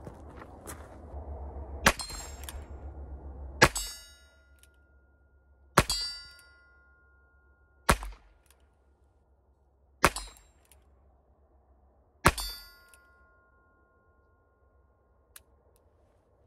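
Six shots from a Ruger Wrangler .22 LR single-action revolver, fired about two seconds apart. Most are followed by the ringing clang of a hit steel target; one shot is a miss.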